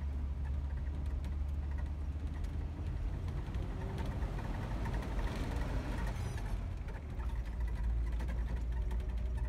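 Jeep engine and road noise heard from inside the cab while driving, a steady low drone that shifts a little lower about seven seconds in.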